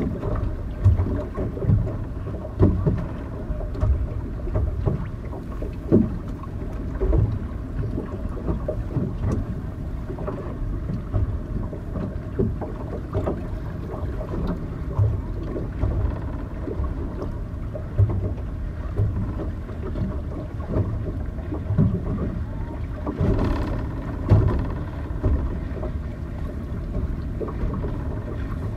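Wind buffeting a microphone on open water: uneven low rumbling gusts, with a faint steady hum underneath.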